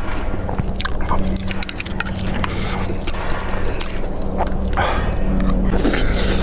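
Close-up eating sounds: wet chewing and slurping of shrimp seaweed soup and spicy kimchi, with many small mouth clicks and smacks, over a steady low hum.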